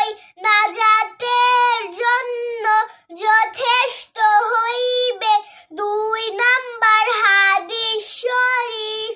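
A young girl singing in a chanting style, phrase by phrase, with held notes and short breaks between phrases.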